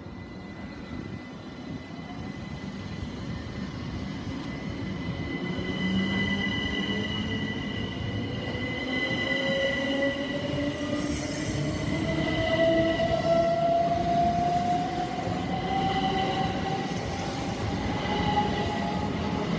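A pair of Class 375 Electrostar electric multiple units pulling away, their traction motors whining and rising steadily in pitch as the train accelerates. Steady high tones run above the whine, and the sound grows louder as the train gathers speed.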